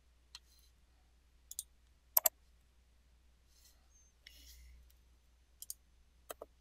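Computer mouse button clicks: a few scattered sharp clicks, several in quick pairs, the loudest pair about two seconds in. A brief soft hiss about halfway through.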